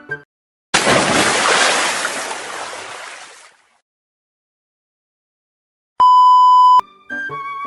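A sudden burst of rushing noise that fades out over about three seconds, then silence, then a single steady beep of under a second, a typical censor bleep tone.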